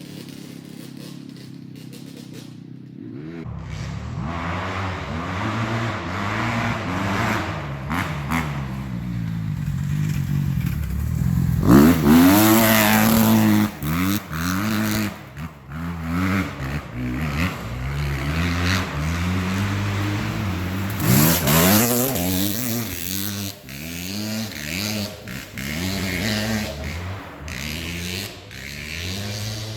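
Kawasaki 250 motocross bike engine being ridden, its pitch rising and falling over and over as the throttle is worked through the gears. It is steadier and quieter for the first few seconds, then gets louder, with hard revving climbs about twelve seconds in and again about twenty-one seconds in.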